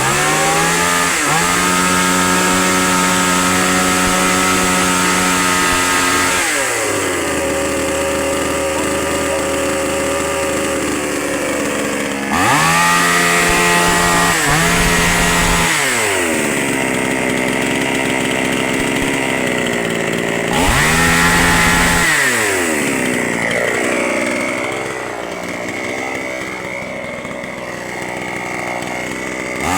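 Two-stroke chainsaw engine running, revved up to high speed and let back down to idle several times. Near the end it runs lower and unevenly.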